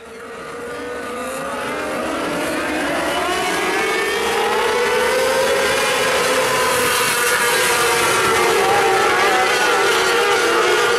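A pack of 600cc micro sprint cars racing on a dirt oval, their motorcycle engines running hard with several notes overlapping and rising and falling. The sound comes up from quiet right after a cut and grows louder over the first few seconds, then holds steady.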